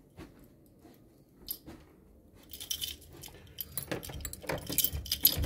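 Light clicks and rattles of a door knob and latch as a glazed door is opened, growing busier over the last three seconds.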